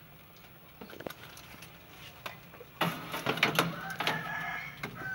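Foil-lined metal tray clattering and scraping as it is slid onto the wire rack of a countertop toaster oven, in a burst about three seconds in. A few light clicks come before it.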